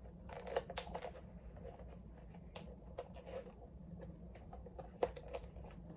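Light, scattered plastic clicks and taps as a glow stick is worked around the rim of a plastic cup.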